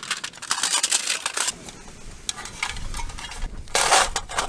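Quick light clicks, clinks and rustles of small objects being handled, thickest in the first second and a half, with a louder rustle near the end.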